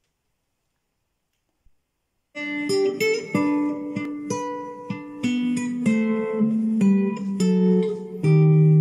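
Guitar introduction to a slow song. It begins about two seconds in, after near silence, with picked and strummed chords that ring on over a bass line stepping downward.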